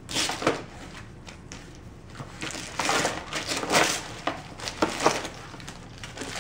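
Gift wrapping paper being ripped and crinkled by a dog tearing it off a wrapped cardboard box with its mouth and paws, in repeated irregular bursts of tearing and rustling.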